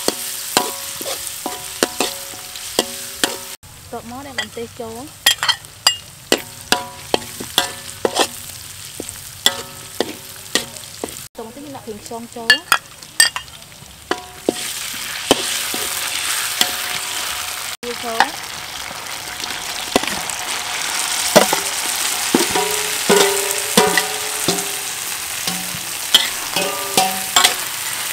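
Metal spatula scraping and clinking against a steel wok while chopped garlic and chillies fry in hot oil; each strike leaves the wok ringing briefly. About halfway through, the sizzling grows louder and steadier.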